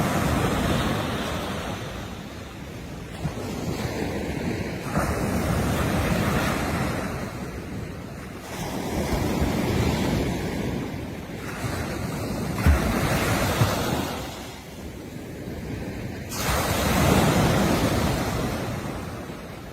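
Sea waves breaking and washing in, swelling and fading about every three seconds, with wind on the microphone adding a couple of brief low thumps a little past the middle.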